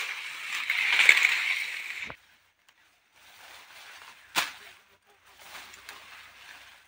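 Leaves and brush rustling loudly close to the microphone, stopping abruptly about two seconds in. Then fodder plants being cut by hand with a sickle: faint rustling of stems, with one sharp snap a little over four seconds in.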